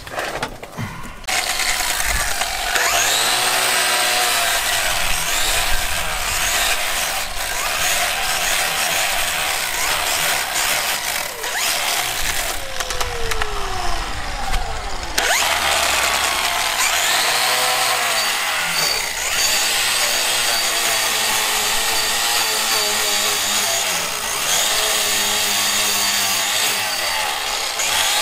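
Cordless angle grinder with a wire cup brush scrubbing rust and old paint off a truck's steel frame. Its motor spins up and winds down several times between passes.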